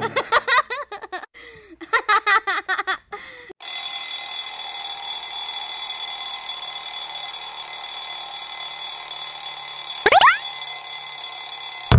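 A steady alarm tone holds for most of the time, after a few seconds of rapid warbling chirps, and a quick rising whistle sounds near the end.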